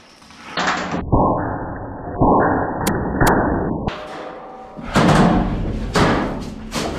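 Several loud thuds and bangs inside a corrugated-steel shipping container, with rumbling noise between the hits.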